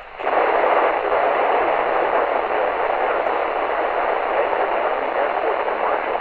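Loud steady static hiss from a NOAA weather radio receiver, starting abruptly as the broadcast voice cuts out: the receiver has lost the station signal.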